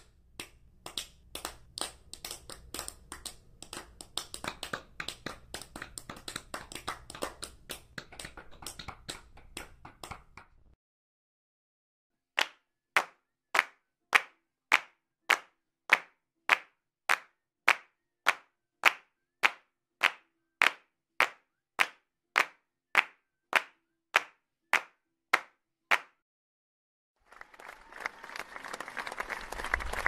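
Hands clapping in three takes. First comes scattered, uneven clapping for about ten seconds. After a short pause, one person claps alone in a steady rhythm about twice a second. After another pause, fuller applause from a larger crowd swells up near the end.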